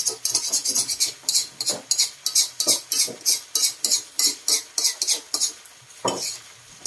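Spatula scraping and tapping against a steel wok while stir-frying instant noodles, about four quick strokes a second. The strokes thin out near the end, with one louder knock about six seconds in.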